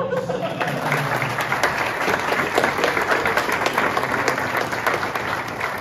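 Audience applauding: many people clapping at once, a dense, steady clatter of hands.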